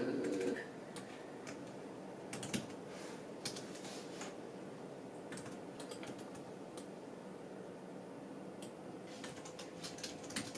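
Computer keyboard typing: scattered keystrokes in short runs with pauses between them, as lines of dialogue are typed in.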